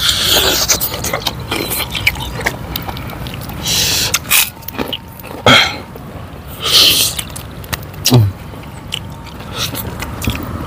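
Close-up eating sounds from a spicy mukbang: wet chewing and lip-smacking clicks, with several short, sharp hissing breaths drawn through the mouth against chilli heat. A brief low grunt comes near the end.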